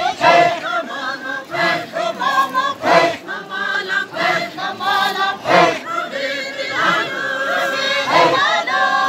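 A group of voices singing a chant together in held, wavering notes, accented by loud sharp hits every few seconds.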